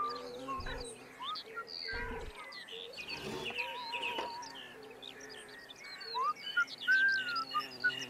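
Birds chirping and warbling in many short, quick calls, over soft background music with held notes.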